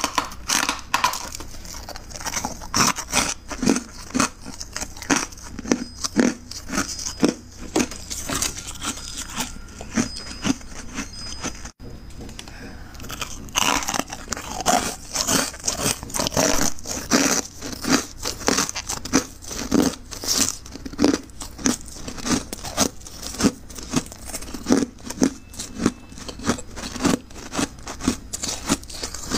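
Powdery freezer frost crunching in quick repeated crisp crunches, with a brief break a little before the midpoint.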